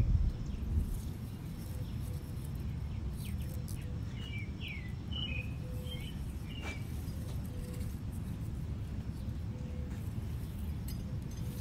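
A few short bird chirps over a steady low outdoor rumble, with faint clicks as pepper-plant leaves are handled.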